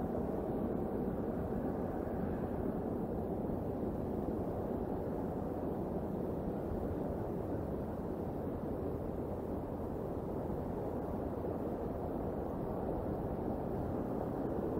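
Steady low rushing outdoor noise on a wildlife-camera microphone, even throughout with no distinct sounds standing out.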